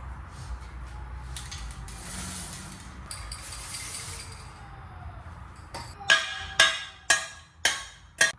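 Hammer striking steel five times, about half a second apart, each blow sharp and ringing, as a bolt is tapped through the car's rear suspension. Before the blows, faint clinks of metal parts being handled.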